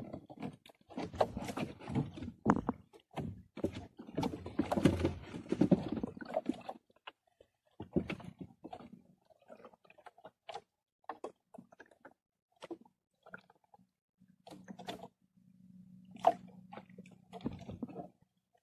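Knocks, clicks and rubbing of hands and fishing line against a small boat as a handline is worked and a fish is handled: busy for the first several seconds, then scattered clicks. A low steady hum joins for a couple of seconds near the end.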